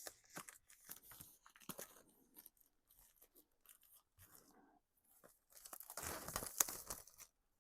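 Packaging being handled and torn open: scattered crinkles and clicks, then a louder stretch of tearing about six seconds in.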